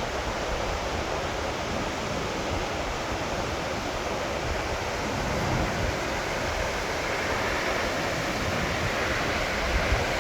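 Takakkaw Falls heard close up: a large waterfall giving a steady, dense rush of falling water. Gusts of the falls' wind buffet the microphone underneath it.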